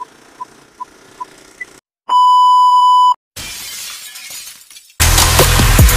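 Intro sound effects over a film-leader countdown: a run of short blips about two and a half a second, then a loud steady beep lasting about a second, then a glass-shattering crash. Electronic music with a heavy drum beat comes in near the end.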